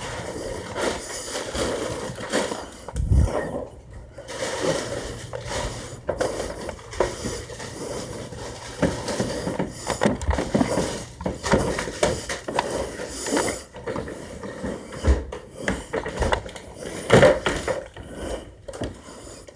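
Handling and movement noise: irregular knocks, clicks, scrapes and rustling, with a few louder thumps.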